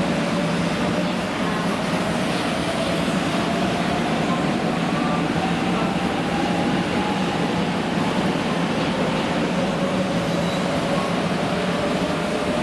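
JR West 500 series Shinkansen pulling out of the station and gathering speed: a steady rumble of wheels on rail, with a whine that slowly rises in pitch as the train accelerates.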